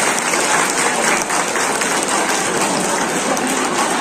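A crowd applauding: many hands clapping at once in a steady, dense patter.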